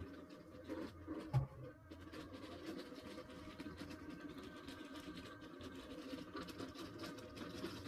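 Small budget robot vacuum cleaner running: a steady motor hum with scratchy, ticking brush and wheel noise, and a thump about a second and a half in. Its owner finds it very noisy.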